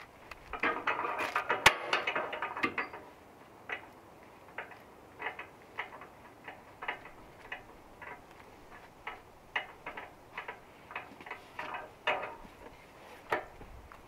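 Irregular metal clicks and clanks from hand work on a log at a bandsaw mill's bed, a dense flurry in the first few seconds, then single clicks about once or twice a second.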